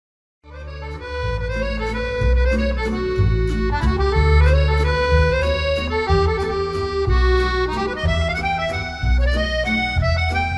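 Background music with a steady beat, a bass line and a lively melody, starting about half a second in.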